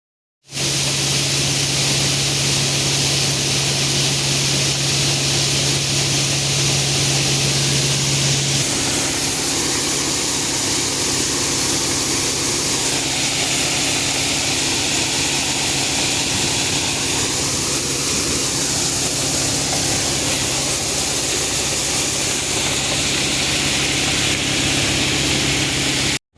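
Vehicle engine running steadily with a constant hiss over it; its low hum steps down in pitch about nine seconds in.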